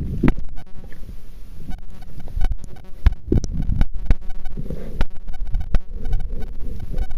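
Muffled underwater rumble and water sloshing against a waterproof camera's microphone, broken by several sharp knocks and splashes, the strongest about a third of a second in and again around three seconds in.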